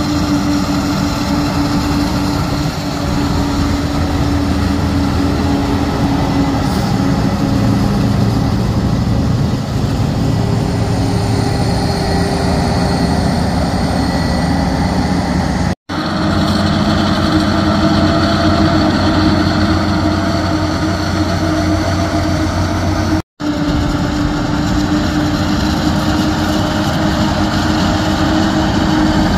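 A self-propelled John Deere forage harvester chopping maize, together with the tractors hauling alongside it. The sound is a steady, loud diesel engine drone with a humming tone over the rush of the chopper and crop. The sound cuts out for an instant twice in the second half.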